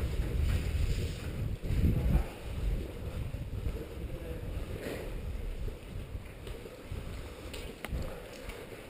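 Low rumbling noise on a body-worn camera's microphone as the player moves, loudest in the first two seconds and slowly fading, with a few faint clicks.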